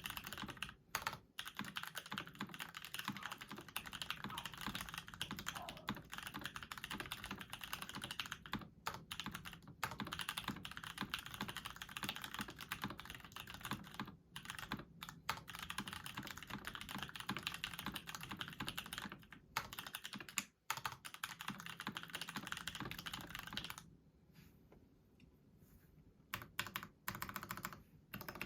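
Fast, continuous typing on an Eniigma Infinitum TKL mechanical keyboard: undampened full aluminium plate, factory-lubed Parallel Pewter switches and CRP R3 keycaps, making a dense stream of keystroke clacks. Brief pauses come every few seconds, with a near-quiet gap of about three seconds near the end.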